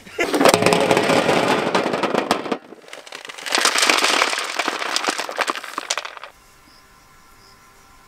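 Two bursts of dense crackling, each two to three seconds long with a short gap between, cutting off about six seconds in to a faint, steady insect-like chirring.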